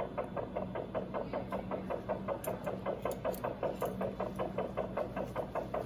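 Rapid, even pulsing of a small rodent's heartbeat, about five or six beats a second, over a steady hum. This is typical of a Doppler blood-flow monitor tracking the anesthetized hamster's pulse.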